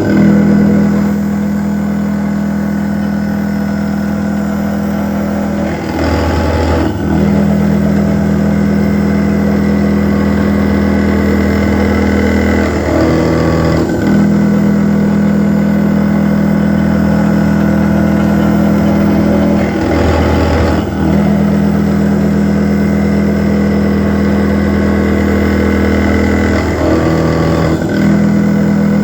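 CNC milling machine finish-machining steel with a 2 mm ball end mill: a steady motor hum with held tones that shift in a repeating cycle about every seven seconds, as the toolpath repeats its passes.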